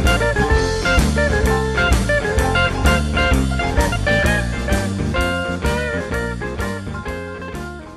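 Rock-and-roll music with electric guitar and a drum kit keeping a steady beat, fading out near the end.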